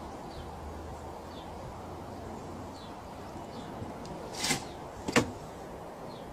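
A cat scrambles off the lid of a plastic water butt and drops to the ground. There is a short scuffling bang, then, about two-thirds of a second later, a sharper knock, the loudest sound. Both come over a steady outdoor hiss.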